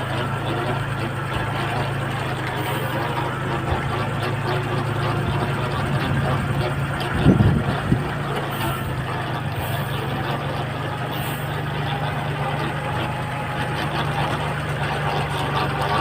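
Farm tractor engine running steadily, with a short cluster of louder knocks about seven seconds in.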